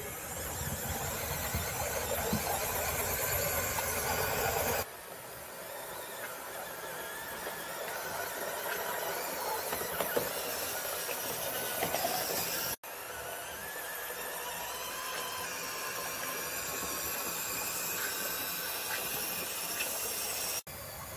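3D-printed resin radio-controlled KV-1 tank model driving, its small electric gear motors and gearboxes whining steadily, with a few clicks from the plastic tracks. The sound changes abruptly about five and thirteen seconds in.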